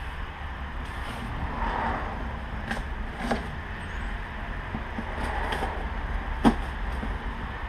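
Cardboard shipping box being opened by hand: scraping and rustling of the cardboard as its packing tape is worked at with a small blade, with a few sharp clicks, the sharpest about six and a half seconds in. A steady low rumble runs underneath.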